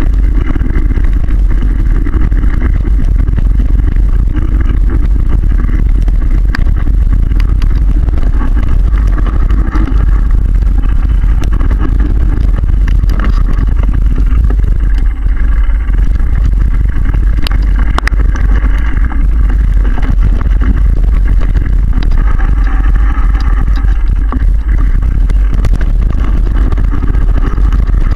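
Wind rumble on the microphone of a camera riding on a mountain bike, mixed with the rattle of the bike running over a dirt trail, with scattered sharp knocks from bumps.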